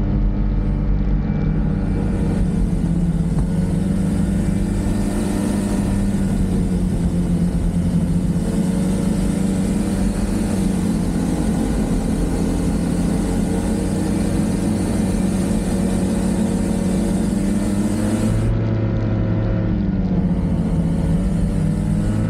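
Snowmobile engine running steadily while riding along a trail, its pitch holding nearly constant and easing briefly near the end, with a steady hiss of noise over it.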